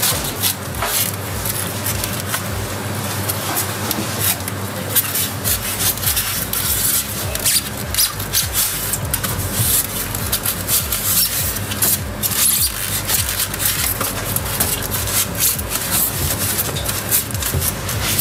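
Polystyrene foam insulation shell of a Thermex IBL 15 O water heater being pried and pulled off its steel tank. The foam rubs and scrapes, with many short crackles throughout.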